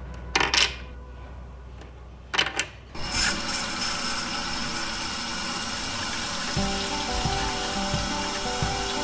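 Toy kitchen sink faucet running: a steady rush of water sets in about three seconds in and keeps going, after two short bursts of noise. Light background music plays throughout.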